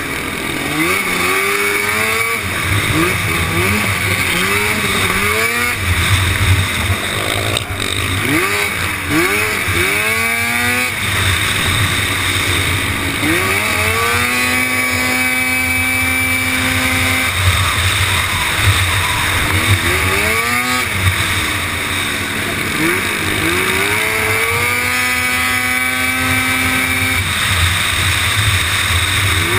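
Racing quad's engine heard from a camera mounted on the quad, revving up and falling back again and again through the corners with quick rising sweeps as it pulls through the gears. Twice it holds steady high revs for a few seconds.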